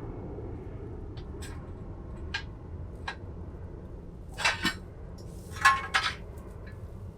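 Metal clinking and clanking of steel jack stands being handled and pulled out from under the truck: a few light single clinks, then two louder bursts of clanks about halfway through, the second with a short ring.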